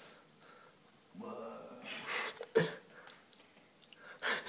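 A person's voice, a low murmur lasting about a second, starting about a second in. Short noises follow, one of them sharp about two and a half seconds in.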